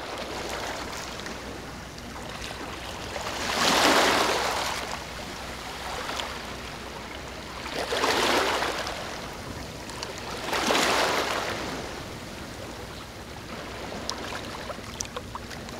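Rushing water noise that swells three times, about four seconds, then three seconds apart, over a steady wash.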